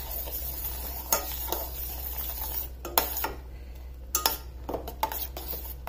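A spoon stirring milk with dates in a pan on the stove, with a few scattered clinks of the spoon against the pan.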